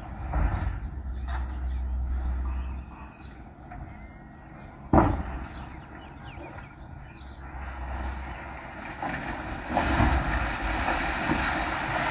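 Concrete silo demolition: a low rumble, a single sharp bang about five seconds in, then a growing rush of crumbling, falling concrete with scattered knocks toward the end.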